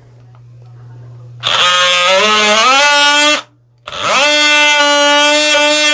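Cordless oscillating multi-tool with a narrow bimetal blade running in two bursts of two to three seconds each, its buzz rising in pitch as it spins up. It is cutting and raking out wood to clear space for a door latch and strike plate.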